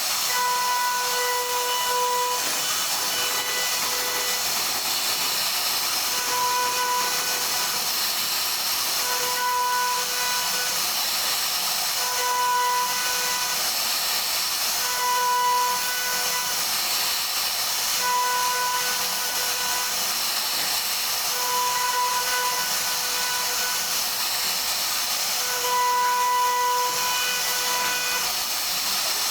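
CNC router spindle cutting wood: a steady, dense hiss with a fixed-pitch whine that comes and goes every second or two as the bit moves through the cut.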